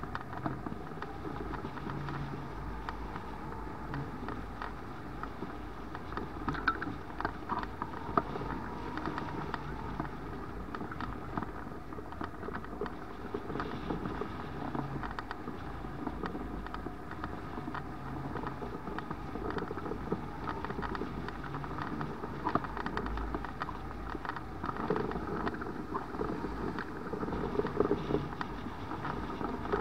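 Airflow rushing past a hang glider in flight, heard as steady wind noise on the microphone with irregular gusty buffeting.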